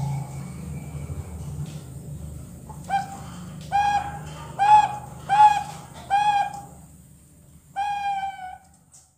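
Two-month-old zebra doves (Bangkok perkutut) practising their song: a run of short arched coo notes, about one every 0.7 seconds from around three seconds in, then a longer drawn note near the end. A low steady hum runs underneath and stops just before the end.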